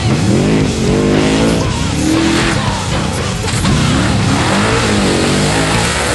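Off-road race vehicle's engine revving, its pitch climbing and falling several times over a few seconds.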